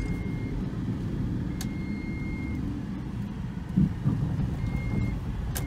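Car cabin noise while driving: steady low engine and road rumble, with a faint high electronic beep sounding three times and a single thump about four seconds in.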